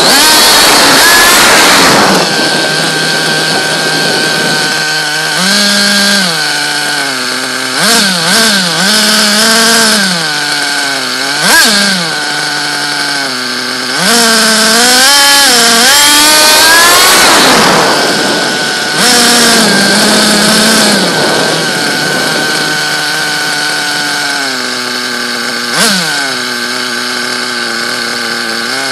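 Small nitro engine of a radio-controlled car running at high revs. Its high pitch climbs and drops over and over as the car speeds up and slows, and it gets loudest as the car passes close by, sharply about 11 s and 26 s in.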